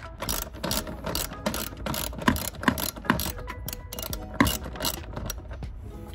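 Socket ratchet wrench clicking in quick irregular runs, with a few louder clicks near the middle, as the front-seat mounting bolts are worked loose.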